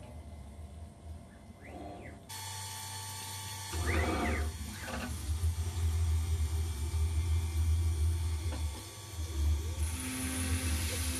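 CNC router spindle running an end mill through grade 5 titanium (Ti-6Al-4V) under coolant spray: a steady low hum with cutting noise over it. The sound changes abruptly about two seconds in and gets louder soon after, with the cutting noise swelling and easing.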